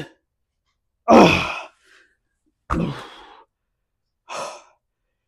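A man's forceful exhalations and grunts of effort during dumbbell lateral raises. There are three main breaths about a second and a half apart. The loudest, about a second in, is a voiced falling groan, and the last is softer.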